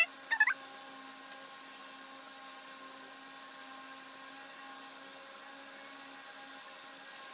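A brief squeaky, high-pitched sound in the first half-second, then a steady hum with several fixed tones from a running appliance motor.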